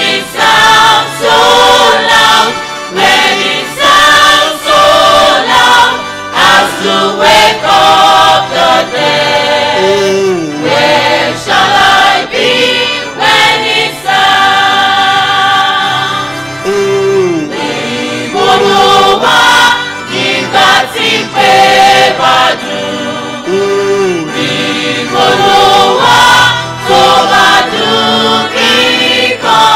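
Gospel choir singing, many voices together into microphones, with a steady beat behind them.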